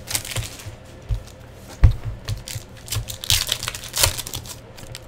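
Foil trading card pack wrapper crinkling and tearing open in the hands, with a run of crackles and clicks. A single thump, the loudest moment, comes a little under two seconds in.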